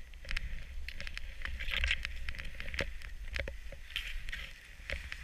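Skiing or riding through deep powder snow: a swelling and fading hiss of snow, with a low wind rumble on the microphone and many short clicks and knocks as snow-laden branches brush past.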